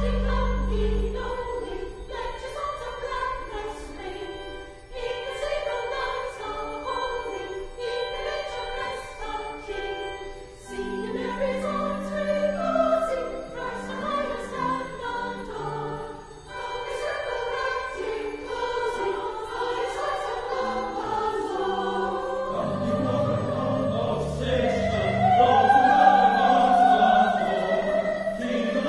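Choir singing a classical-style piece with instrumental accompaniment, swelling louder about three-quarters of the way through.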